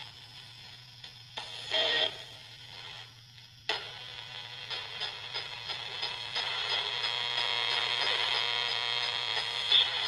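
Handheld radio used as a spirit box, putting out faint static with a short burst of broadcast sound about two seconds in, then from about four seconds in a station's music comes through steadily.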